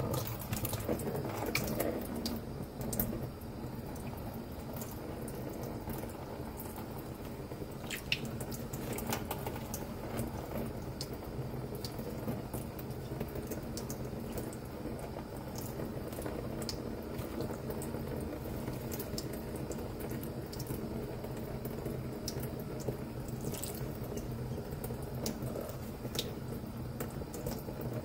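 Thin stream of water running steadily from a kitchen faucet over a bathing budgerigar and the hand holding it, splashing into a stainless-steel sink, with scattered sharp splashes.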